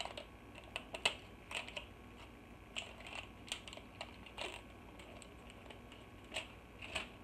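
Clear plastic wrapping being peeled and crumpled off a small spray bottle: faint, irregular crinkles and clicks, scattered every half second or so.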